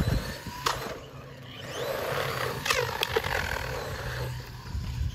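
A 1:16 scale remote-control truck driving hard: its electric motor whines up and down in pitch as it speeds up and slows, with the tyres scrabbling over the ground. A few sharp knocks, about a second in and again near the middle, as the truck hits or lands.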